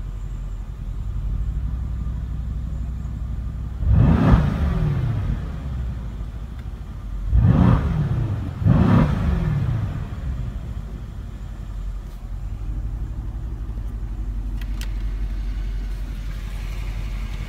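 Mercedes-AMG C63 S's 4-litre twin-turbo V8 idling with a steady rumble, revved three times in Park: once about four seconds in, then twice more about a second and a half apart. Each rev rises quickly and falls back to idle. A single short click comes near the end.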